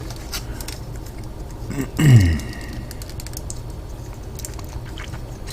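Small clicks and taps of plastic Gunpla model-kit parts being handled and snapped together. A short falling "hmm" from a person's voice comes about two seconds in.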